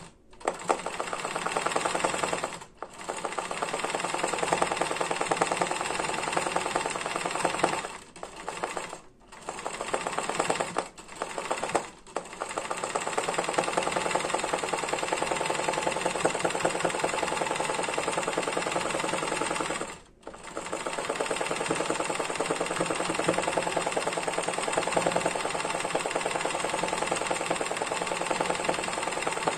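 Janome 813 sewing machine running steadily as it stitches zigzag machine embroidery, with short stops several times in the first twelve seconds and once around twenty seconds in.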